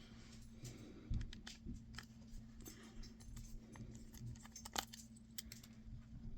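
Faint, scattered light clicks and small metallic ticks from a precision screwdriver bit and cell phone parts being handled, as a T5 Torx bit is put to work taking a phone apart.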